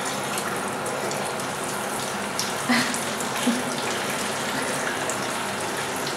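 Water running from a bathroom sink tap into a plastic water bottle held under the stream and splashing into the basin: a steady rush of water.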